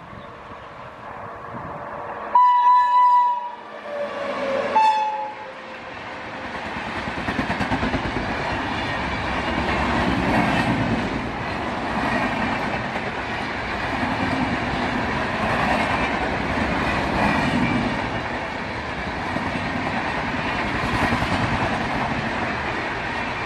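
WAP-7 electric locomotive sounding its horn twice, a long blast then a shorter one that drops in pitch as it passes, followed by the express train's coaches rolling by at speed with a rhythmic clickety-clack of wheels on the rails.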